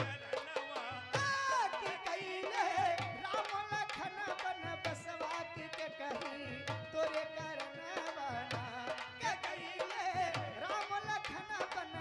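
Indian folk music played live: a hand drum keeps a steady, repeating beat under a wavering melody line.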